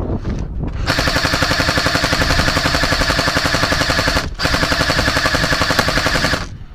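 Airsoft gun firing on full auto in two long, rapid bursts: the first runs about three and a half seconds, starting about a second in, then after a brief break a second burst runs about two seconds.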